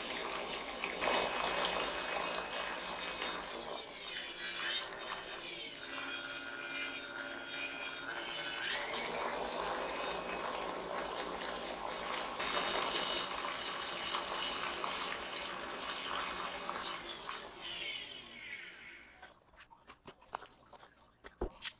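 Tilt-head stand mixer running on high, its beater churning thickening whipped cream into butter in a plastic-wrapped bowl: a steady motor whine with wet churning. It winds down and stops a couple of seconds before the end, leaving a few light clicks.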